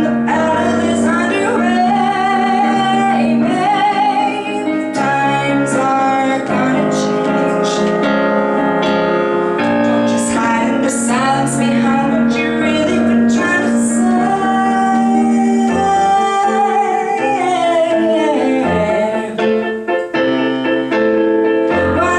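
A woman singing a pop ballad live, with piano accompaniment, holding long notes with vibrato over sustained chords.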